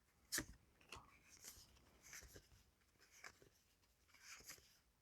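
Near silence with the faint rustle and scattered ticks of trading cards being handled and slid, with one sharper click about a third of a second in.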